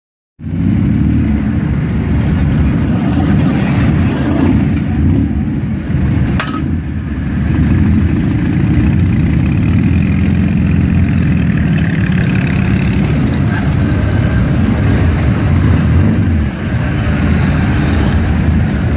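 Engines of a group of classic motorcycles and mopeds running together as riders move off, a steady low rumble that cuts in suddenly just after the start. A single sharp click comes about six seconds in.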